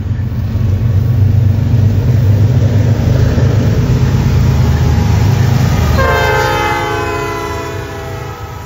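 Canadian National freight train's diesel locomotives approaching and passing with a heavy low engine rumble. About six seconds in, the locomotive horn sounds, several tones together, sliding slightly down in pitch as it goes by.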